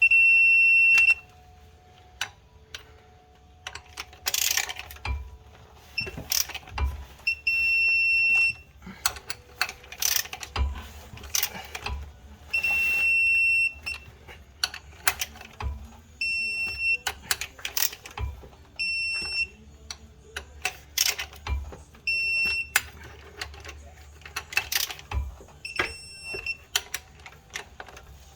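Digital torque wrench beeping while flywheel bolts are tightened: short high beeps and several held beeps about a second long, which mark the target torque being reached. Ratchet clicks and metal knocks come between the beeps.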